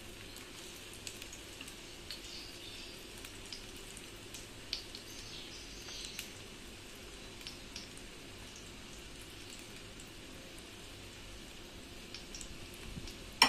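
Egg-dipped bread slice frying in oil on a tawa: a quiet, steady sizzle with scattered small pops and crackles.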